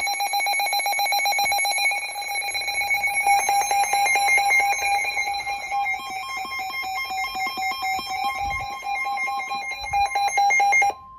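Weather radio alert alarm signalling an incoming warning: a loud, shrill electronic beep pulsing rapidly. A second steady alert tone joins about six seconds in, and both cut off near the end.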